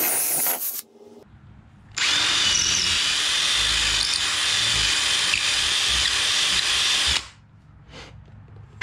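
Ryobi cordless drill driver boring holes through a dinghy's transom panel: a short burst of drilling that stops about a second in, then after a brief pause a steady run of about five seconds that cuts off sharply.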